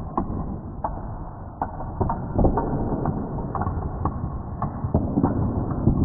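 Padlocks with steel shackles toppling in a domino chain: an irregular run of sharp metal clacks as the locks fall against each other and onto the wooden table, several of them ringing briefly.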